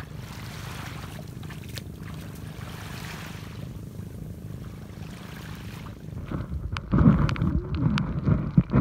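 Steady low drone of a boat engine under wind and sea-water noise. In the last few seconds it is joined by louder nearby sharp knocks and voice-like sounds.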